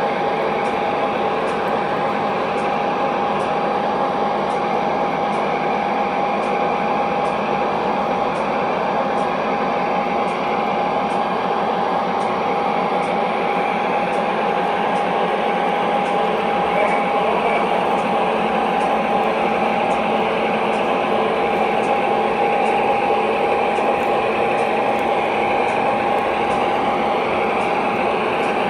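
O gauge model train locomotives running: a steady mechanical whir of motors and gearing with one held tone through it, and faint ticks repeating a little under once a second.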